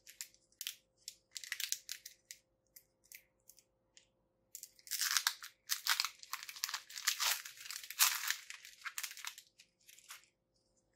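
Foil wrapper of a Pokémon card booster pack crinkling and tearing as it is opened by hand: scattered crinkles at first, then a dense stretch of crinkling from about five seconds in until shortly before the end.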